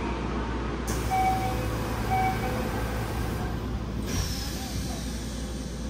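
Passenger doors of a 4000-series subway car closing at a station stop: two short door-chime beeps about a second apart over a steady hiss, then the doors shut with a knock about four seconds in.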